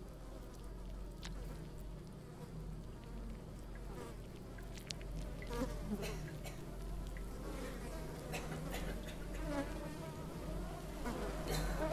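Flies buzzing over a low steady hum, slowly growing louder, with a few faint clicks.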